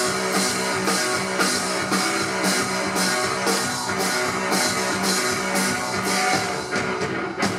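A live blues-rock duo playing: an amplified hollow-body electric guitar and a drum kit, with cymbal strikes about twice a second over a held low note.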